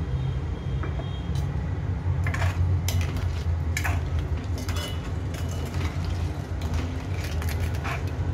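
Steel spoon stirring thick curry in a stainless steel pan, scraping and clinking against the pan at irregular intervals from about two seconds in, over a steady low hum.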